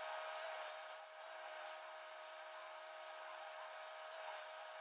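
Hand-held cutting torch cutting through the steel shell of a trommel drum: a steady hiss with a constant tone underneath.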